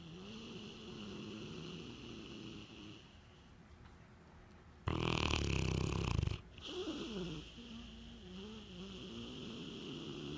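Young pit bull snoring in its sleep: soft droning breaths with a wavering pitch, and one much louder snore about five seconds in that lasts about a second and a half.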